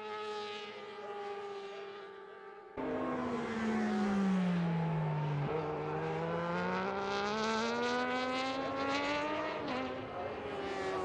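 Racing sportbike engine at full race pace. It is quieter at first, then about three seconds in it cuts suddenly to a louder, close bike whose engine note falls as it slows into a corner. It then climbs steadily as the bike accelerates out, with a short dip at a gear change near the end.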